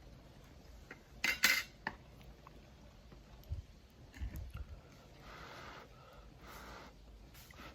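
Utensils clinking against a metal camp cooker during a meal, with a quick cluster of sharp clinks about a second and a half in and a few dull knocks later.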